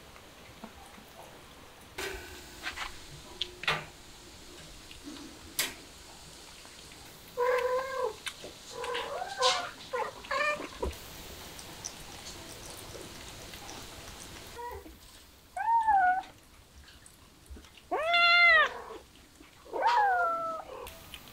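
A cat meowing about six times in short calls that rise and fall in pitch, mostly in the second half. A few soft clicks come before them.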